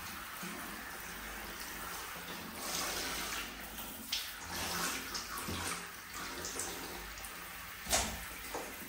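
Bath water running and splashing, a steady wash of water with sharper splashes now and then, the loudest near the end.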